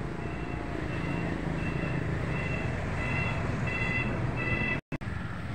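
Outdoor rumble of wind and distant traffic. Over it, a short high beep or chirp repeats about twice a second and grows louder, until a split-second dropout cuts the sound near the end.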